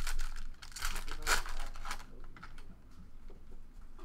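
Foil wrapper of a 2014 Bowman Jumbo baseball card pack being torn open and crinkled, a run of sharp rustling over the first two seconds, then quieter.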